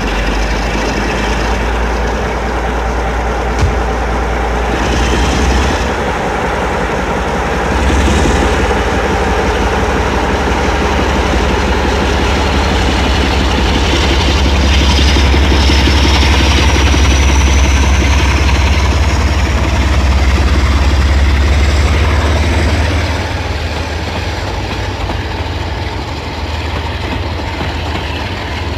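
British Rail Class 47 diesel locomotive working hard as it accelerates an 11-coach train away, its Sulzer twin-bank twelve-cylinder engine loud and deep, with a whine rising in pitch through the middle. A single sharp knock comes a few seconds in, and the engine sound drops back near the end.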